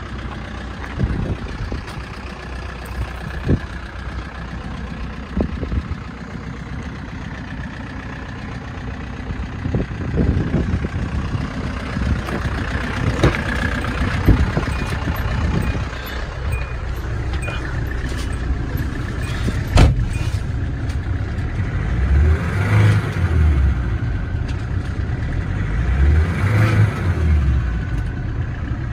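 Kia Bongo3 K2700's 2.7-litre diesel engine idling steadily, rising and falling in pitch twice near the end. A single sharp knock cuts in about two-thirds of the way through.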